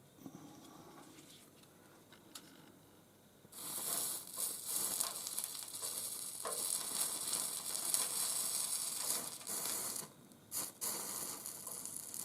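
Solder flux sizzling as heat is put to a solder joint on a copper lamp top, starting about three and a half seconds in, with a short break near the end.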